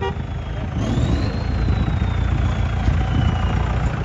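Engines of 4x4 off-road vehicles running in shallow river water, the low engine sound growing louder about a second in. A thin whine rises about a second in and then slowly falls.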